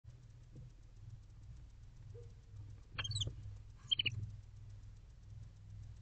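Two short, high-pitched chirping calls from barn owls, about three and four seconds in, over a steady low hum.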